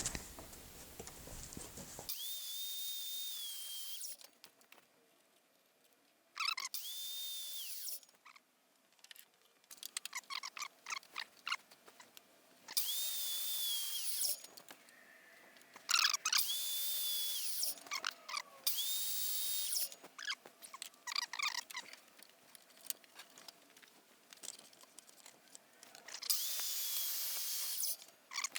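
A small high-speed power tool's motor run in short bursts of one to two seconds, about six times, each with a high whine that spins up and winds down, with clicks and handling noises between the runs.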